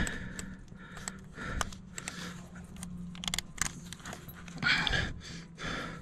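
Small metal clicks and taps of a wrench working a hydraulic hose fitting, over a steady low hum, with a heavy panting breath about five seconds in.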